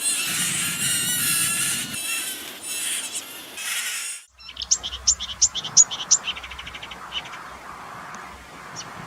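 Marsh warbler singing its fast, varied song, which is full of imitations of other birds. Dense, busy song for about four seconds cuts off abruptly. After a brief gap comes a burst of sharp, high separate notes, then a rapid buzzy trill, then scattered single notes.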